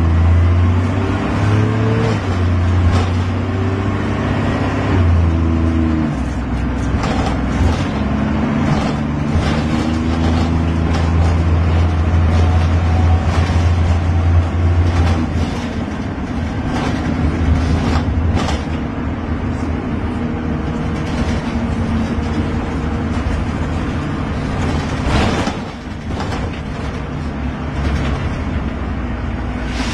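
Bus engine running, its pitch rising at the start and changing as it revs up and settles, with scattered sharp clicks and knocks.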